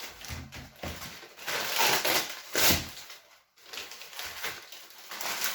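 Irregular rustling and crinkling handling noise in several uneven bursts, loudest about two to three seconds in.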